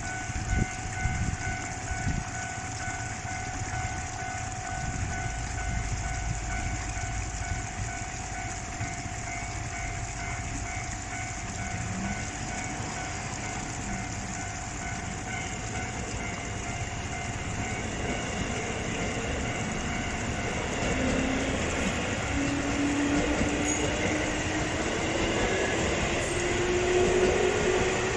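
Japanese level-crossing warning bell ringing in a steady repeated clang while an electric train approaches, its noise growing louder over the last third, with a slowly rising whine near the end.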